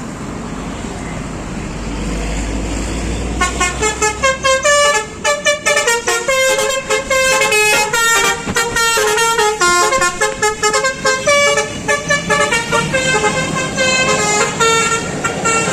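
Indonesian bus telolet horn playing a fast melody of short, bright notes, starting about three seconds in after a low engine rumble.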